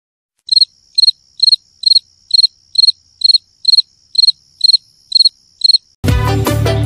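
Cricket chirping, the stock 'awkward silence' gag sound: twelve short, even chirps about two a second. About six seconds in, the chirping stops and music with a strong beat cuts in.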